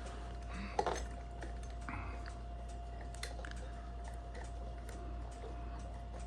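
Faint metallic clicks and short scrapes of hand-made lever picks working inside a five-lever lever lock, over a steady background hum.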